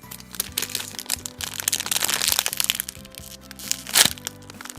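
Packaging crinkling and crackling as a squishy toy is handled, densest around two seconds in, with one sharp crack about four seconds in. Background music plays underneath.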